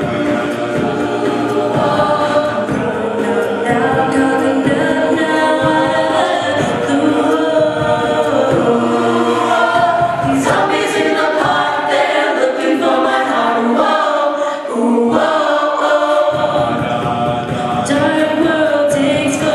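A cappella vocal group singing in layered harmony, with no instruments. The low bass part drops out for a few seconds past the middle and then comes back.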